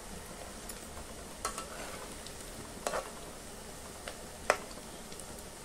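Cabbage and onion pakoras deep-frying in hot oil in a steel kadai, with a steady sizzle. A metal spatula turns them and clinks against the pan four times; the loudest clink comes about four and a half seconds in.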